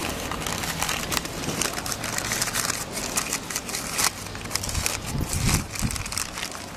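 Brown paper wrapping crinkling and rustling in irregular crackles as a new mechanical seal is unwrapped by hand.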